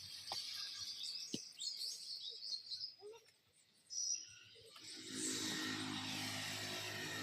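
Small birds chirping over faint background noise, with a few sharp clicks. About five seconds in, a louder steady sound with a low hum comes in and holds.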